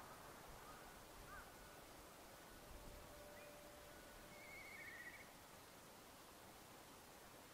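Near silence with a few faint distant bird calls: a short chirp about a second in and a brief warbling trill between four and five seconds.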